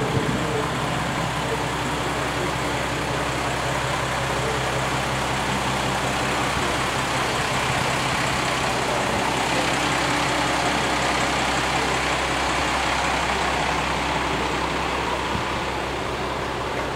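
Tarumi Railway diesel railcar's engine idling steadily with a low hum while the car stands at the platform.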